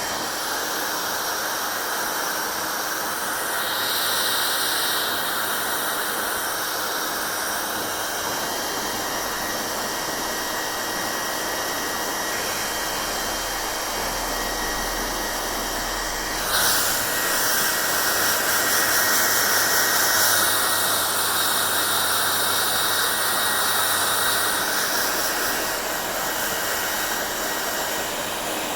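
Hair dryer blowing: a steady rush of air over a motor hum. Its sound brightens briefly a few seconds in, then turns suddenly louder and brighter a little past halfway before easing back near the end.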